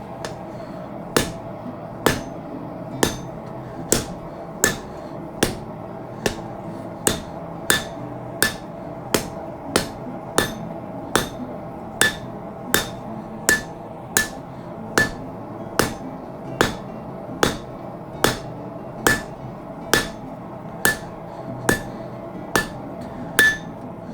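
Blacksmith's medium-sized cross-peen hammer striking hot leaf-spring steel on an anvil, drawing out a sword blade. The blows come at a steady pace, about four every three seconds, each with a short metallic ring.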